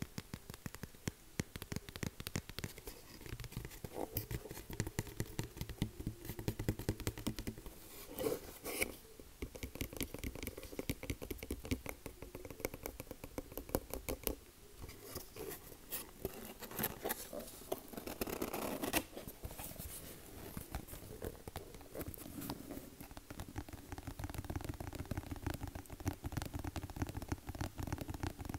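Rapid, continuous light tapping, many taps a second, uneven in strength.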